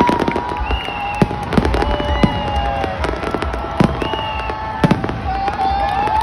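Aerial firework shells bursting in a rapid barrage: a run of sharp bangs, the loudest about a second apart, over a continuous crackle of smaller reports.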